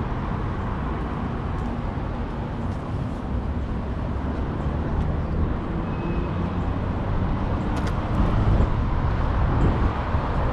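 City street traffic: a steady hum of passing cars, growing louder about eight seconds in as a vehicle goes by close.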